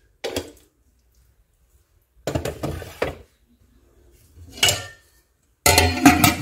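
Metal kitchenware clattering in several short knocks, the loudest near the end as a steel plate is set down as a lid on a metal cooking pot (patila), clanking with a brief ring.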